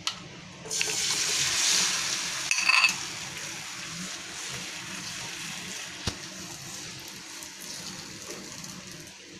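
Egg batter hits hot butter and oil in a nonstick pan and sizzles loudly at once, about a second in, then settles to a steady, quieter sizzle while it is spread with a spoon. A few metal clinks come about two and a half seconds in, and there is a single knock about six seconds in.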